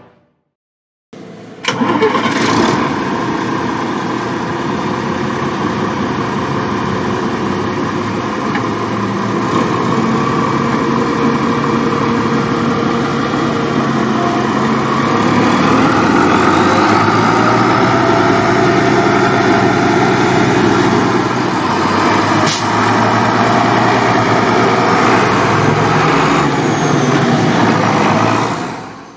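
IHC 1255XL tractor's diesel engine running, coming in after about a second of silence and growing a little louder about halfway through.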